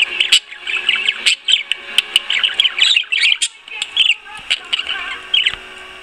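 Pet budgerigar chattering: a rapid run of short, squawky chirps that stops about five and a half seconds in.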